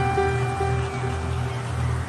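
Background music: long held notes over a low, pulsing bass.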